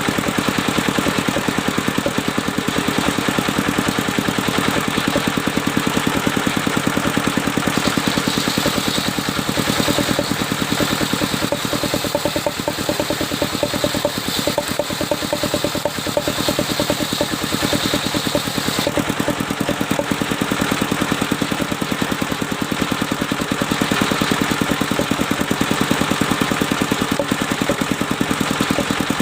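Engine of a portable circular-saw sawmill running steadily with a rapid, even pulse. For about ten seconds in the middle a higher hiss joins in as the blade cuts through mahogany.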